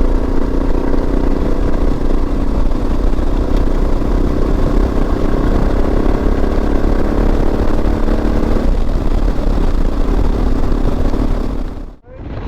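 Suzuki DR650's single-cylinder four-stroke engine running steadily under way, with heavy wind rumble on the rider's microphone. The engine note changes about three-quarters of the way through. The sound cuts out sharply for a moment near the end.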